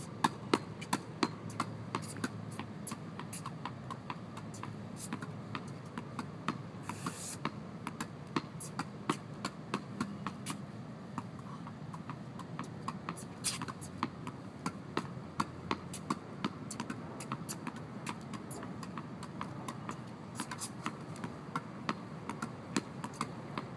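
Tennis balls bouncing on a hard court and being struck by a racquet: a run of sharp, irregular pops throughout.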